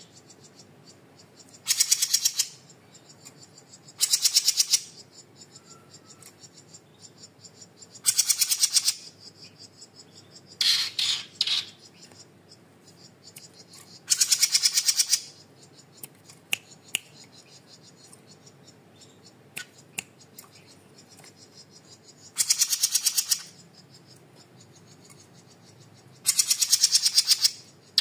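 Small caged songbird giving loud, rapid chattering trills about a second long, seven times with gaps of two to four seconds between them. A few faint single clicks fall in the gaps.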